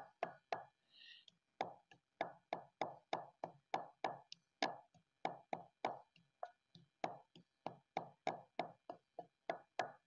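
Wooden pestle pounding fresh mint leaves in a stone kundi mortar: steady, even strikes about three a second, with a short break about a second in that holds a brief high-pitched sound.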